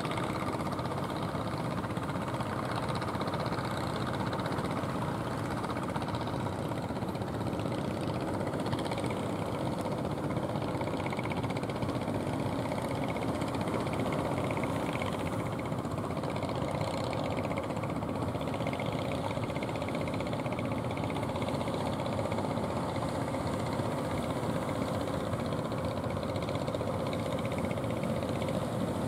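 Motorized outrigger fishing boats running steadily under engine power as they come in toward shore: a constant engine drone over a dense noise bed.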